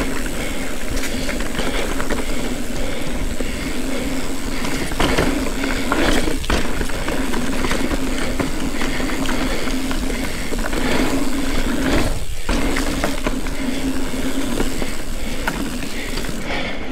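Ibis Ripley mountain bike ridden along a dirt trail: steady tyre noise on dirt and rock, with constant rattling and clicking from the bike's chain, frame and rear hub.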